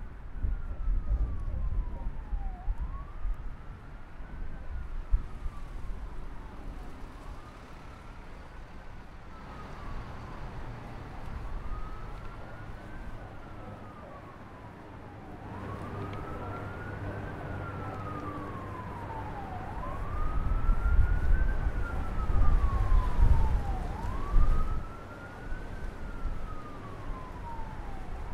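A siren wailing, rising and falling in pitch about every four seconds, over wind buffeting the microphone, which gusts loudest in the second half.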